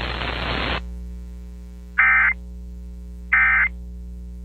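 Radio static hiss cuts off under a second in, leaving a low hum. Then come two short bursts of Emergency Alert System digital data tones, a little over a second apart: the End of Message code that closes the broadcast tornado warning.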